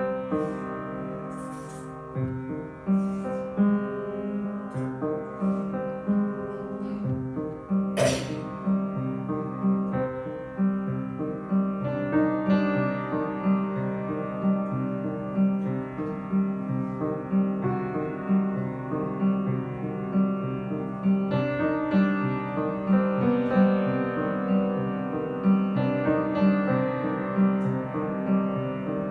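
Upright piano played solo: a sad, slow piece, with steady repeated low notes under a melody. One short, sharp noise cuts across the playing about eight seconds in.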